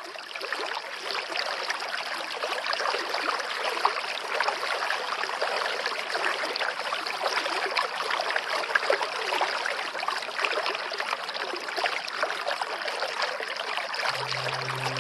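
Waterfall water rushing and splashing in a steady hiss. A low held musical note comes in about a second before the end.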